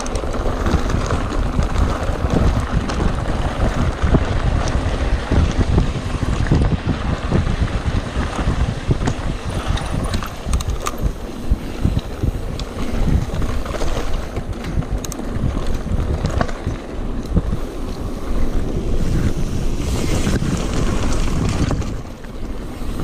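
Wind buffeting the camera's microphone over the rumble of mountain-bike tyres rolling fast on a dirt and gravel track, with scattered clicks and rattles from the bike over the rough ground.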